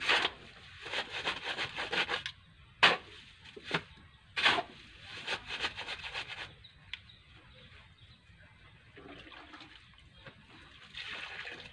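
Metal shovel scraping and scooping through a gritty sand and cement pile on the ground: several sharp scrapes in the first few seconds with rasping shovelfuls between them, a quieter stretch, then another scrape near the end.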